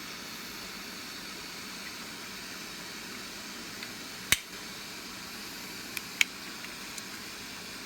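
Butane soldering torch burning with a steady hiss. A few sharp clicks break in, the loudest about four seconds in and two more close together around six seconds.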